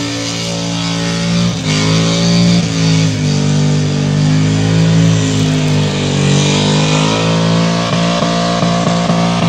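A burnout car's engine held at high revs, its pitch wavering up and down, with a run of quick stutters near the end. Loud music with guitar plays alongside it.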